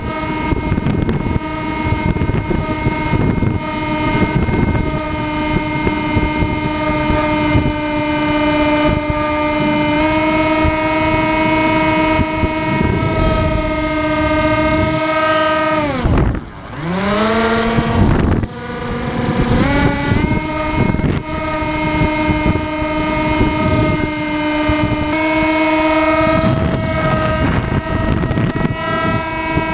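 RC plane's motor and propeller heard from the onboard camera, a steady whine with wind rushing over the microphone. About halfway through the pitch falls steeply as the motor is throttled back almost to nothing, then it climbs back up in steps as power is reapplied and holds steady again.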